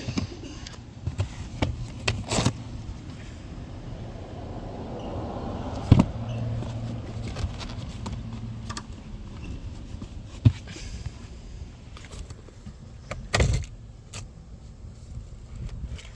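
Clicks and knocks of a car's interior trim being handled as a storage compartment is opened: a sharp click about six seconds in, another about ten and a half seconds in, and a heavier thump near the end.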